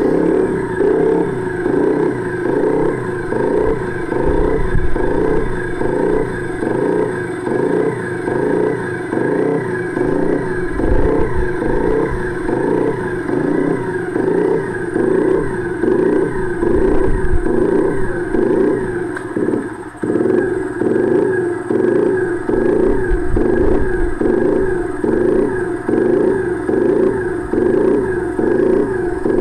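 Honda EX5 single-cylinder four-stroke motorcycle engine idling with a loping 'timing kuda' beat, the uneven gallop of ignition timing tuned to make the idle sound like a trotting horse. The beat repeats about one and a half times a second and stays even throughout, with a short dip in level about two-thirds of the way in.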